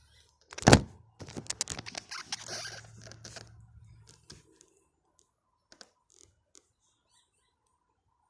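Car door shutting with one heavy thud, followed by a few seconds of clicks, rattles and rustling that die away to a few scattered clicks.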